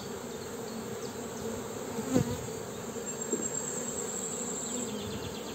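Honeybee colony buzzing steadily in an opened hive, with a light knock about two seconds in as a wooden comb frame is lifted out.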